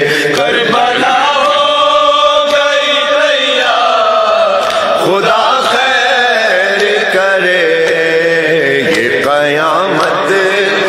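Voices chanting a noha, a Shia mourning chant, in long held notes that waver and glide in pitch.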